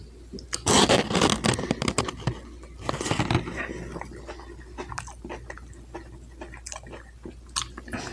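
A person chewing and biting food close to the microphone, with loud crunchy bites about a second in and again about three seconds in, then softer, wetter chewing.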